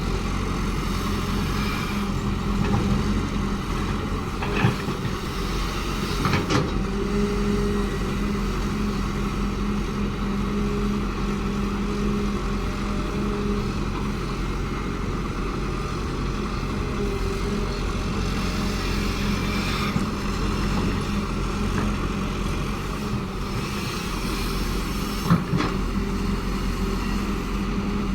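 Cat excavator's diesel engine running steadily while it works, with a few sharp knocks, the loudest near the end.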